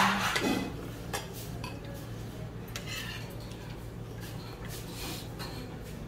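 Metal spoons and chopsticks clinking now and then against bowls and stone pots during a meal, a few scattered light clicks over a steady low hum.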